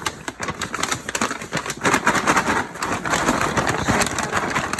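Popcorn being shaken in a folded-down paper bag: a dense, rapid rattle of kernels against the paper and crisp rustling.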